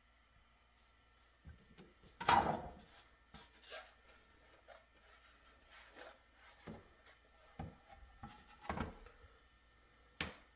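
Scattered knocks, clicks and short scrapes from handling a 3D printer's textured build plate and its freshly printed test pieces, with the loudest knock a couple of seconds in.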